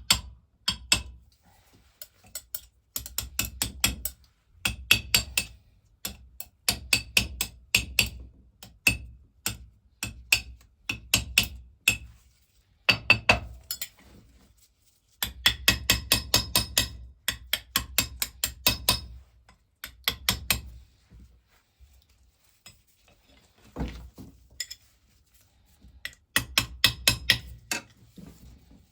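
Bursts of quick, light hammer taps on metal, several a second with short pauses between runs, as the balls of the water pump's valves are tapped down to bed them into their seats.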